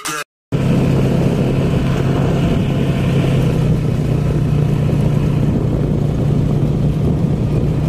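ATV (quad bike) engine running steadily while riding over sand, heard from on board. It starts about half a second in, after a brief silent gap.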